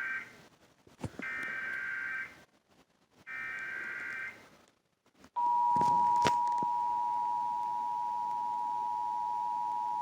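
Emergency Alert System SAME header: buzzy digital data bursts of about a second each, the tail of one and then two more, followed about five seconds in by the EAS two-tone attention signal (853 and 960 Hz), which starts abruptly and holds steady. This is the opening of the National Periodic Test alert.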